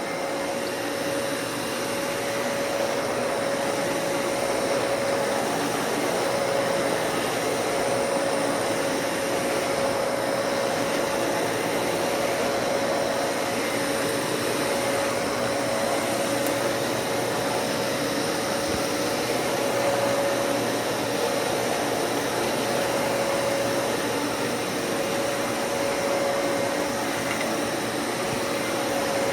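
Dyson Cinetic Big Ball bagless vacuum cleaner running steadily while vacuuming, a constant rushing airflow with a steady whine.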